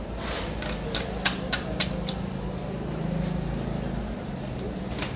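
Knife knocking on a wooden cutting board as a tuna is cut: about seven sharp knocks in the first two seconds, then a few more, over a steady low mechanical hum.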